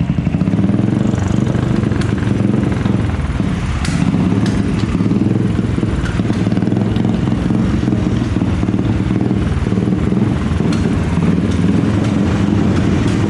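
Royal Enfield Classic 500's single-cylinder engine running steadily, with a rapid low pulse. The bike has an intermittent misfire ('light jerks') that the mechanic puts down to a dirty throttle body.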